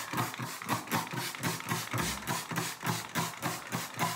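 Hand-held trigger spray bottle squirted rapidly over the hair, a quick regular run of spritzes about five a second.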